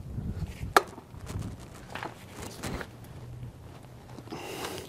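Steel heel bar prying at the old wheel seal in a semi-truck wheel hub: scattered metal clicks and scrapes, with one sharp click about three-quarters of a second in and a short rasp near the end.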